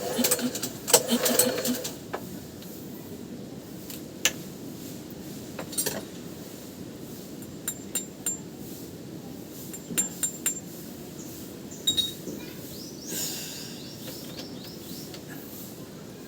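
Metal tools and small boat engine parts clinking and tapping as they are handled: a quick run of clinks in the first two seconds, then scattered single clicks, and a brief scraping rattle about 13 seconds in.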